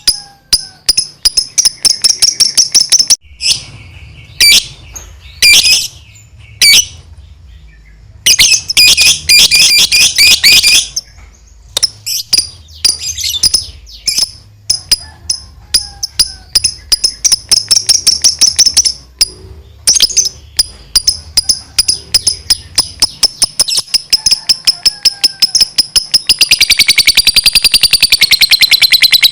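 Lovebird giving its long 'ngekek' chatter: rapid trains of sharp, high chirps broken by a few short pauses, speeding up near the end into a fast continuous trill that wavers in pitch.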